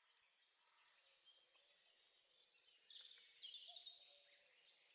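Faint birdsong fading in out of silence: high chirps and short falling notes, growing louder about halfway through.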